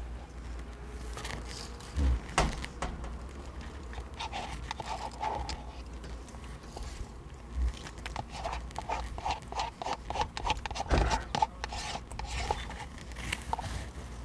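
Eating ice cream from a carton: a spoon clicking against the carton several times, with eating and slurping mouth sounds, which come quick and close together in the second half.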